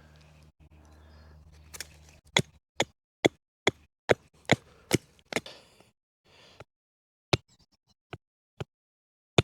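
A blade chopping at a hardwood stick to shape it to a point: a run of sharp knocks about two a second, then a few spaced-out knocks near the end.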